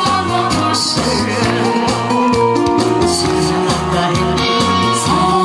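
Korean trot song played over a PA from a backing track with a steady beat, with a woman singing live into a microphone over it.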